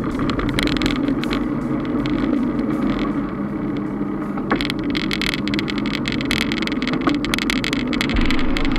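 Riding noise from a Trek 3700 mountain bike on the road, picked up by a body-mounted action camera: a steady rush of tyre and wind noise with many small clicks and rattles from the bike.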